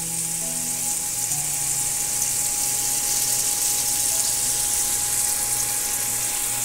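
Sliced onions sizzling in hot bacon grease in a frying pan: a steady hiss as they brown.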